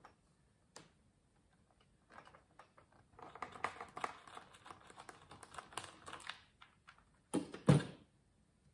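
A run of quick, small metal clicks from a hand tool working screws on a chainsaw. About three-quarters of the way through comes one louder clunk.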